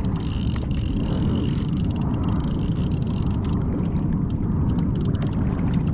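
Wind buffeting an action camera's microphone on a kayak: a steady low rumble, with the faint wash of water around the hull.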